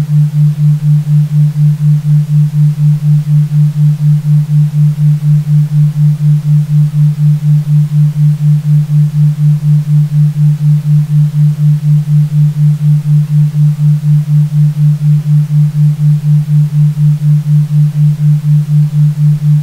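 Isochronic tone for brainwave entrainment: a low, steady-pitched pure tone pulsing on and off evenly about four times a second, over a faint hiss.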